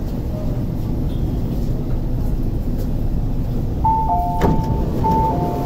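Low rumble inside an MTR SP1900 (IKK-train) electric train car. About four seconds in, a two-tone door chime sounds twice, high then low each time, with a sharp clunk between the two.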